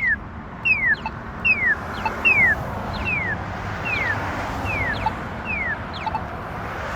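Accessible pedestrian signal push button sounding its walk indication: a short electronic chirp falling in pitch, repeated evenly about once every 0.8 seconds, over a low hum of street traffic.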